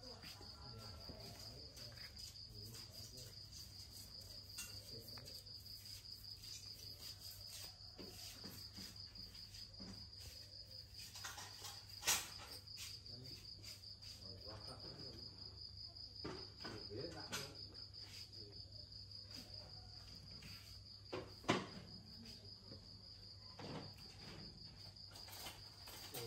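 Insects chirring steadily at a high pitch, with a low hum beneath and a few sharp taps, the loudest about halfway through and another later on.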